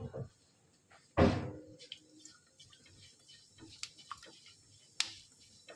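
Mustard, cumin, fennel and fenugreek seeds crackling in hot ghee in a steel kadhai, scattered small pops, while a silicone spatula stirs them. A single dull knock about a second in, the loudest sound.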